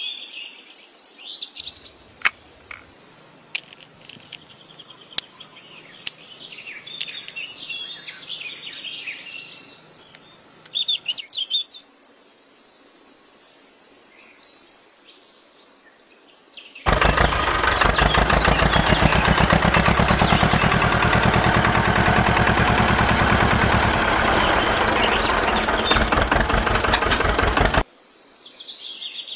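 Birds chirping and tweeting, with a few sharp clicks. About halfway through, a much louder steady noise with a fast rattle comes in for about eleven seconds, then stops suddenly and the chirping returns.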